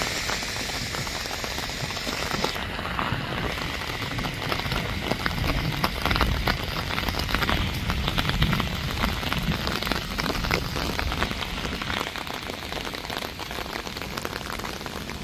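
Thunderstorm downpour falling on wet pavement and foliage: a steady rain hiss dotted with close, individual drop hits.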